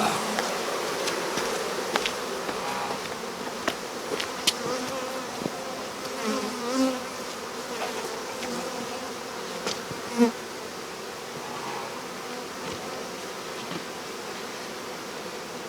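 A swarm of honeybees buzzing steadily around a newly filled hive box, with scattered faint clicks. The buzz swells briefly louder a few times, about six to seven and ten seconds in.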